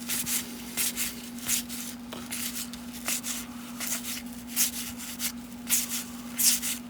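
1990 Topps cardboard baseball cards being flipped through one at a time, each card sliding off the stack with a short papery swish, roughly one every half second to second. A steady low hum runs underneath.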